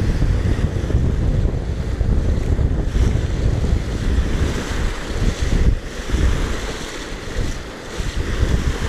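Strong wind buffeting the microphone with a gusting low rumble, over choppy reservoir waves washing and splashing.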